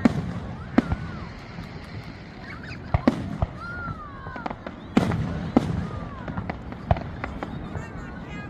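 Fireworks display: aerial shells bursting in a run of sharp bangs, about one a second, with a low rumble carrying between them.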